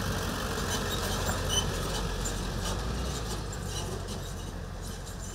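A vehicle engine idling: a steady low hum that eases off slightly about three seconds in, with faint scattered clicks above it.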